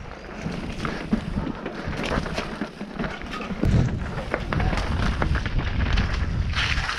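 Mountain bike rattling along a rough trail: repeated knocks and clatter of tyres and bike on stones, with a heavier low rumble from about four seconds in.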